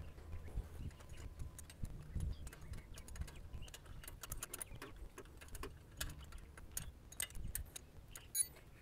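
Light, irregular metallic clicks and ticks of a 10 mm wrench on the fuel lift pump's mounting bolt as it is tightened, with one sharper click near the end.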